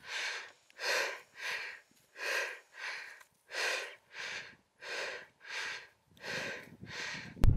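A person breathing hard while walking, a puff of breath about every two-thirds of a second, in and out alternating stronger and weaker. Near the end a sudden, much louder low rumble cuts in.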